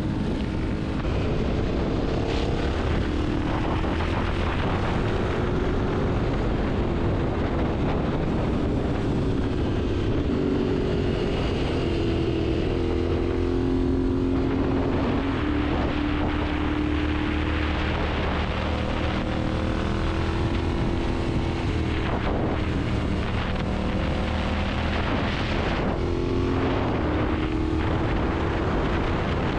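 Steady rumble of vehicle engines, with several tones that slowly rise and fall and no single event standing out.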